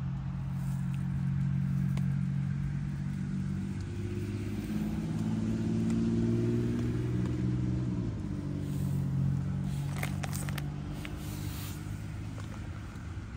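Car engines running in passing road traffic, a low steady engine note that drifts up and down in pitch as vehicles move. A few light clicks and rustles come about ten seconds in.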